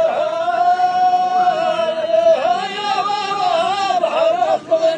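Men's sung Amazigh poetry: one high, drawn-out vocal line, held long and wavering up and down in pitch.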